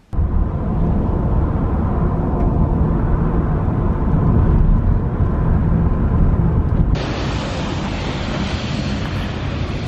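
Steady low rumble of road and engine noise heard from inside a moving taxi. About seven seconds in, it cuts to a steady hiss of wind on the microphone outdoors.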